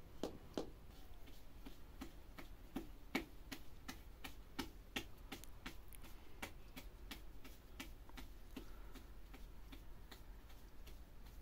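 A series of light, sharp knocks or taps, about four a second at first, then slower and uneven.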